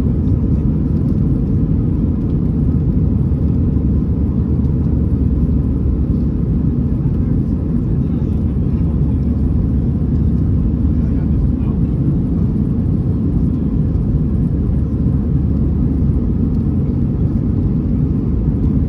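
Steady low roar of an Airbus A321's CFM56 jet engines and airflow, heard from inside the passenger cabin, with a faint steady whine above it.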